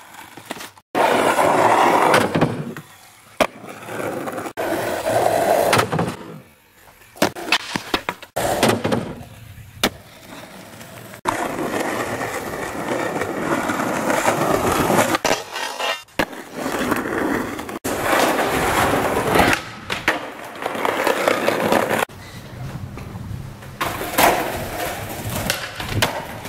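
Skateboard wheels rolling over rough asphalt and paving stones, with sharp clacks of the board popping and landing. It comes in several short stretches that cut off abruptly.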